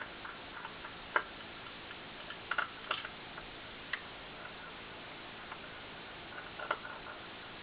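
Irregular small clicks and taps, the sharpest about a second in and a few close together around the middle, from hard drive parts and tools being handled during disassembly, over a steady background hiss.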